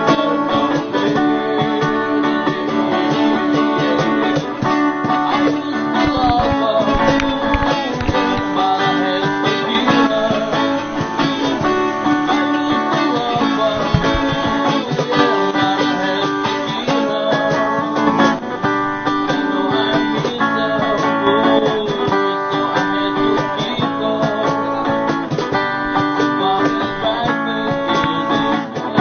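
Background music led by guitar, with plucked and strummed strings.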